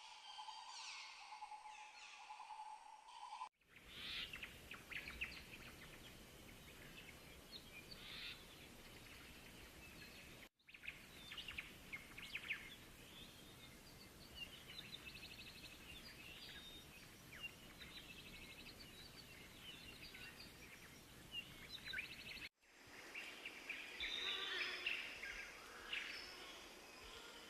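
Rainforest ambience: many short bird chirps and trills over a steady hiss. The background cuts out and changes abruptly three times, about three and a half, ten and a half and twenty-two seconds in.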